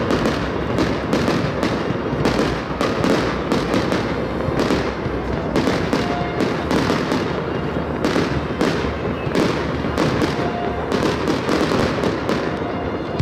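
Aerial firework shells bursting in a continuous barrage, several bangs a second with no break.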